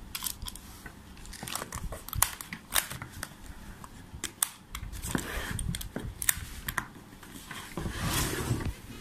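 Hands handling a box of hair pins and a zippered pouch: a string of sharp clicks and taps, with rustling about five seconds in and again near the end.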